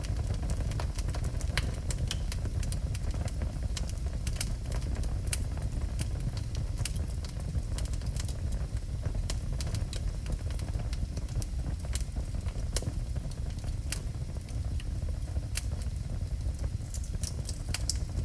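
Wood fire burning in a fireplace: a steady low rumble with frequent irregular crackles and small pops from the burning logs.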